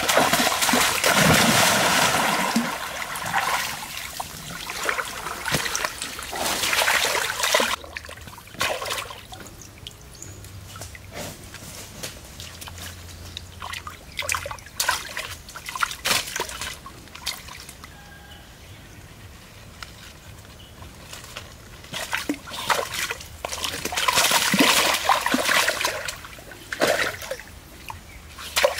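A sudden splash as a slingshot arrow hits the water of a shallow stream, with several seconds of splashing. Then intermittent splashing and sloshing as a person wades in the water and pulls out a speared fish, with a second long stretch of splashing near the end.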